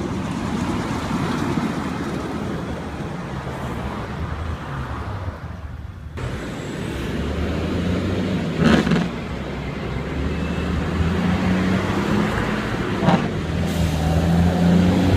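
Heavy diesel trucks on the road: concrete mixer trucks running past at first, then after a break a big-rig tractor's diesel engine with a steady low drone that grows louder as it comes closer. Two short sharp sounds cut through, one a little under nine seconds in and one about thirteen seconds in.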